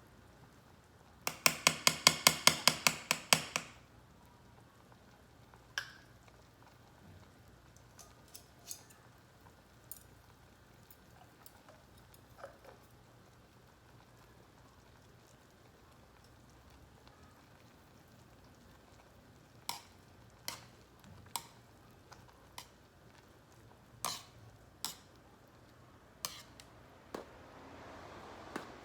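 Utensils clinking against a metal hangō mess tin while stirring: a rapid run of about fifteen sharp taps a second or so in, then scattered single clinks.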